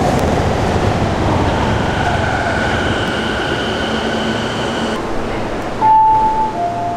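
Subway train slowing to a stop at the platform: a heavy rumble with a falling whine that thins out, then a steady high whine that stops about five seconds in. Near the end a short two-note falling chime sounds.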